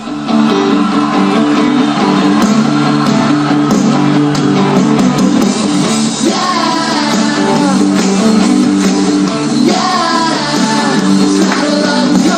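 Rock song with guitar playing and a voice singing.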